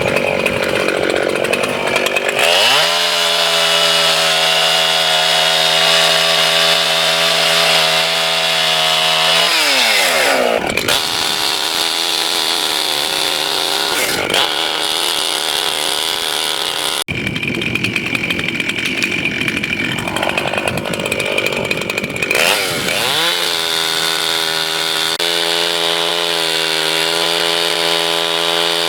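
Gasoline two-stroke chainsaw bucking a dead oak trunk into firewood lengths. The engine revs up and holds a steady high whine through a cut, drops back near ten seconds in, runs rougher through the middle, then revs up and holds again for a second cut before falling off near the end.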